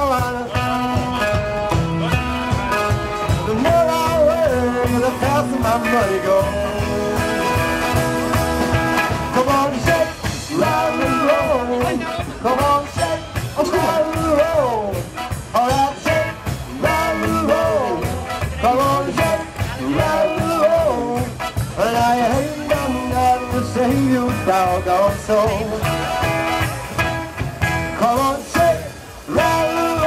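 Live rockabilly music: sung vocals over a hollow-body electric guitar and an upright double bass.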